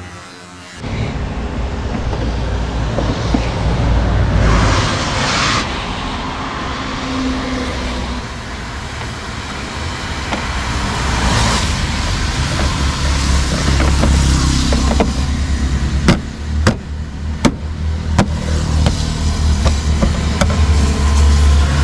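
Vehicles going by on a wet road, their tyres hissing as they pass, over a steady low rumble. Several sharp clicks and knocks in quick succession a few seconds before the end, as the plastic engine cover is pressed back onto its mounts.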